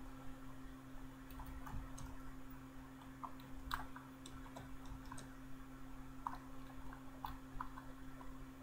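Computer keyboard keys tapped in an irregular typing rhythm, with a steady low electrical hum underneath.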